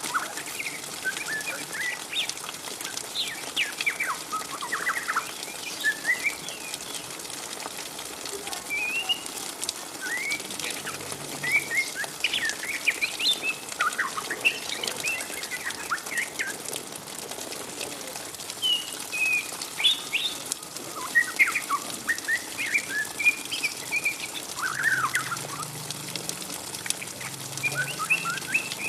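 Juvenile white-rumped shama, about three to four months old, twittering in short, quick chirps and sweeping notes scattered irregularly, the chattering 'ngriwik' of a young bird.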